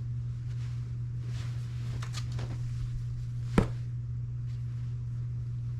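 Faint rustling of a dress being handled, with one sharp click about three and a half seconds in, over a steady low hum.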